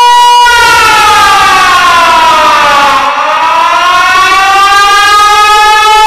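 Loud siren. A steady held tone switches about half a second in to a wail that falls in pitch for about two and a half seconds, then climbs slowly back up.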